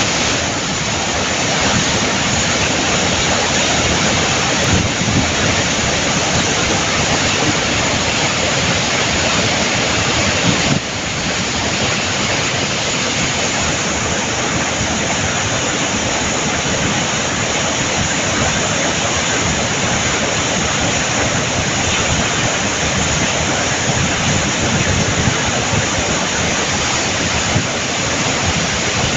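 Salto del Laja waterfall and the whitewater rapids below it rushing, a loud, steady noise of falling and churning water that drops slightly in level about eleven seconds in.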